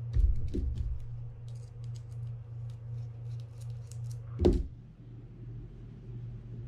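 Small clicks and ticks of a small screwdriver and metal parts as the line roller screw on a Penn Battle II 6000 bail arm is worked loose, with handling bumps near the start and a louder knock about four and a half seconds in. A steady low hum runs underneath.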